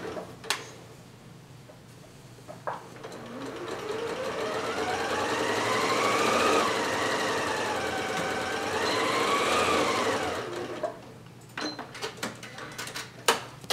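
Electric sewing machine stitching through layered fabric. The motor whine climbs as it speeds up, dips briefly in the middle, climbs again and winds down. A few sharp clicks come before it starts and after it stops.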